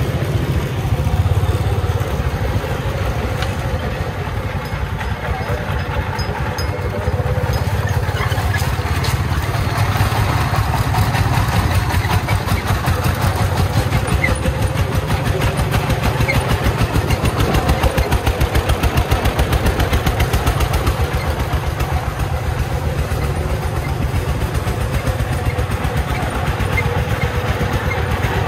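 Three-wheeled công nông truck's 24-horsepower single-cylinder diesel engine chugging in a fast, even beat as the loaded truck drives along.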